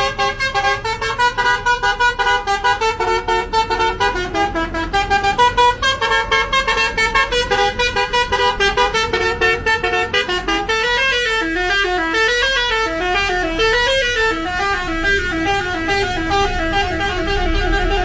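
Basuri telolet musical bus horn playing a quick multi-note melody, the notes hopping up and down; in the second half it turns to fast zigzag trills of alternating notes, ending in rapid repeated pulses.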